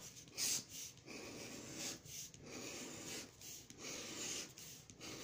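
A lottery scratch-off ticket being scratched: a run of short rasping strokes as the latex coating is rubbed off the play area.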